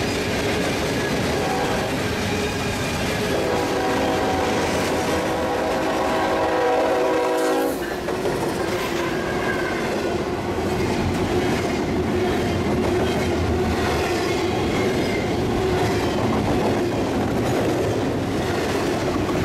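Freight train passing close by, its steel wheels rolling and clattering over the rails. From about three seconds in, a train horn sounds a held chord for several seconds and cuts off abruptly near the middle, after which the rolling of the cars goes on.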